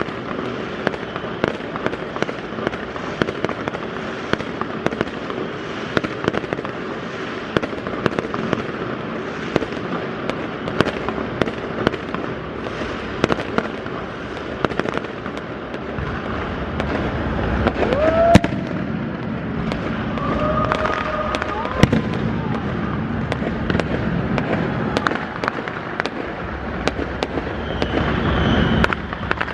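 Fireworks display: a continuous stream of crackling pops. Louder bangs come about 18 and 22 seconds in.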